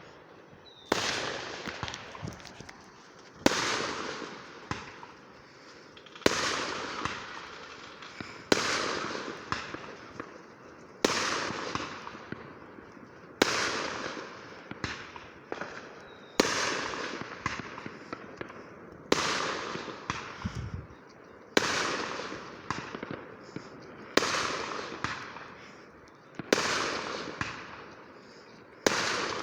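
Fireworks going off in a steady string: a sharp bang about every two and a half seconds, each followed by crackling and smaller pops that fade before the next.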